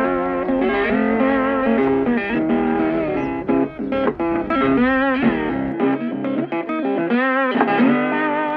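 Background music led by electric guitar, playing sustained, bending notes.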